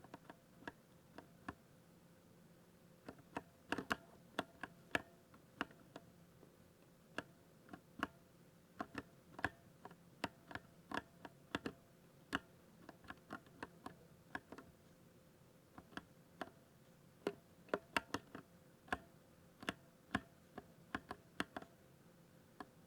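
Keystrokes on a 60% mechanical keyboard with silver switches, typed at an uneven pace: a few scattered presses at first, then a steadier run of a few clicks a second.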